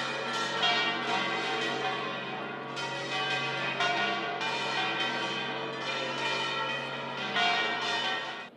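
Church bells pealing: several bells struck over and over, their overlapping tones ringing on together. The peal cuts off suddenly near the end.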